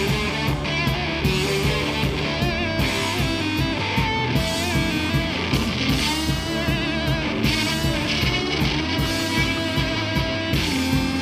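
Live rock band playing: distorted electric guitar over bass and a steady drum beat, with high notes that waver in pitch around the middle.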